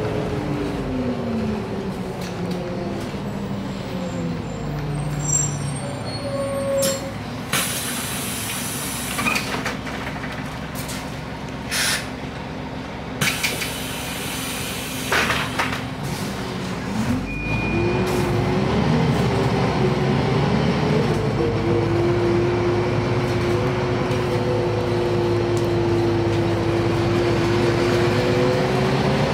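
Heuliez GX 317 city bus heard from inside: its engine and transmission wind down in pitch as it brakes to a stop, followed by several bursts of compressed-air hiss while it stands. About seventeen seconds in, it pulls away, and the engine note rises and grows louder.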